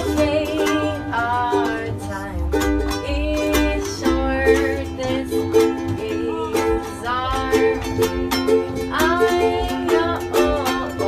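Ukuleles strummed in chords with a voice singing a melody along with them.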